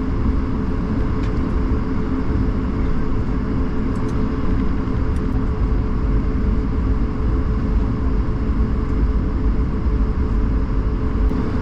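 Cabin noise aboard an Airbus A220-300 under way: a loud, steady rumble of the engines and airflow, with a constant hum running through it.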